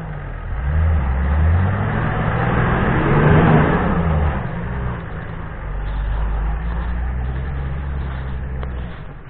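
Off-road 4x4's engine revving hard as it climbs a muddy, snowy track, the revs rising to a peak about three and a half seconds in. It then settles into lower, steadier running as the vehicle drives off, and fades near the end.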